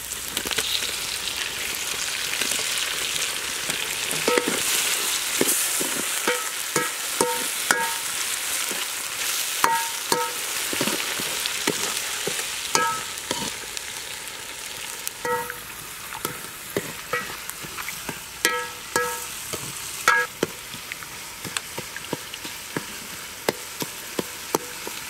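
Tomatoes, onions and green chillies sizzling in hot oil in an aluminium pot, stirred with a coconut-shell ladle. The ladle knocks and scrapes against the pot many times, each knock a short metallic ring, and the sizzle dies down somewhat about halfway through.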